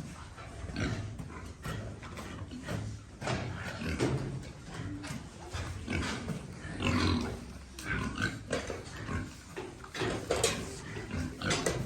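Pigs grunting and snuffling, with irregular short grunts and knocks throughout.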